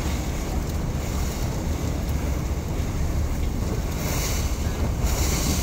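River cruise boat under way: a steady low engine rumble with wind buffeting the microphone and water noise, and two stretches of louder hiss about four and five seconds in.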